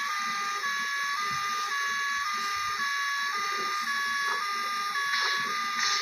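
Two-tone hi-lo ambulance siren, alternating steadily between two pitches, each held about half a second. A couple of short hissy bursts come near the end.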